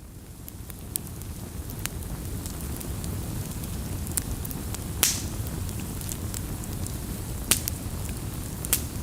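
Campfire crackling: a steady low rumble of burning firewood with scattered sharp pops, the loudest about five seconds in and again about seven and a half seconds in. The sound fades in over the first second or so.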